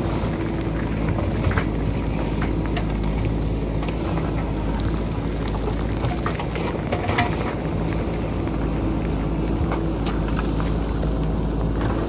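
JCB backhoe loader's diesel engine running steadily, with scattered sharp knocks throughout.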